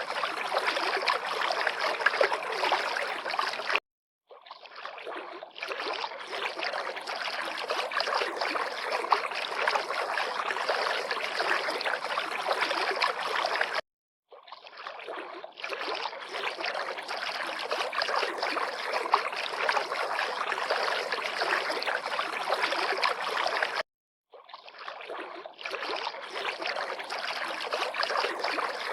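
River water lapping and trickling in a steady, busy splashing. The sound cuts out completely for a moment about every ten seconds and fades back in, like a short recording looped.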